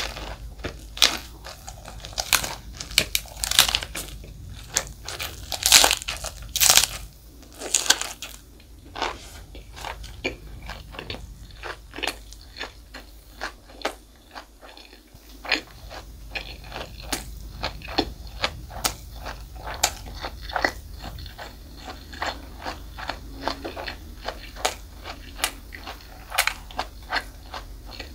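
Close-miked eating sounds: crisp, crackling crunches and wet chewing from bites of food, strongest in the first several seconds and then a steady run of smaller crunches.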